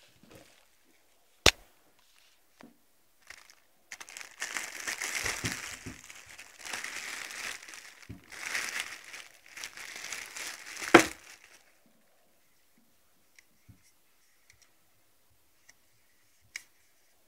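Packaging crinkling and rustling for several seconds as a new Nikon 24-70mm f/2.8 lens is unwrapped and handled, with a sharp knock near the start and a louder one as the rustling ends; after that only faint ticks of handling.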